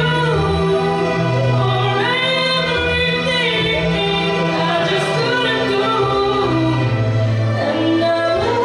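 Woman singing into a handheld microphone over backing music, with long held notes.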